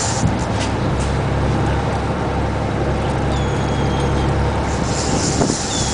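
Boat's engine running steadily under constant wind and sea noise, with a thin high whine lasting about a second, a little past the middle.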